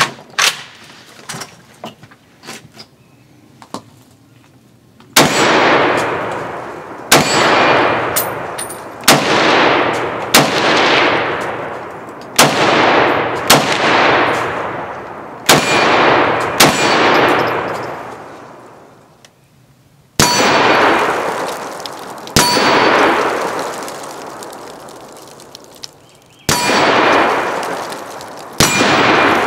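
A few light clicks of the rifle being handled, then about a dozen slow, deliberate semi-automatic shots from a Century Arms C308 7.62x51mm rifle, each with a long ringing clang from the steel target trailing off after it. The shots come one to two seconds apart, with two longer pauses in the second half.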